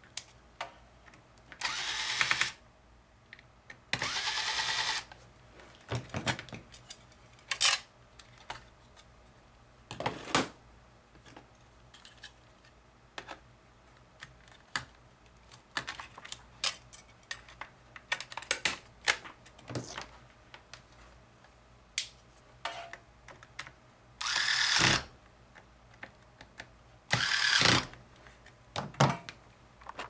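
XModdz PPS 60 electric precision screwdriver whirring in short runs of about a second: twice near the start, taking out the screws of a laptop's hard-drive cover, and twice near the end, driving them back in. In between come many light clicks and knocks of the laptop's plastic cover and the hard drive being handled and swapped.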